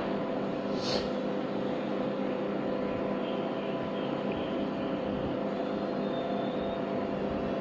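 A steady hum with several constant tones over an even hiss, and a faint click about a second in.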